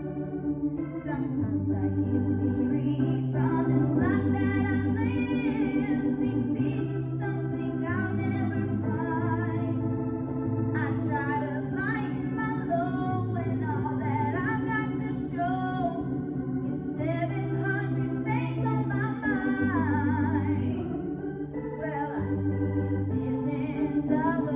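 Organ music: held chords over a bass line that steps to a new note every second or two, with a wavering melody line above.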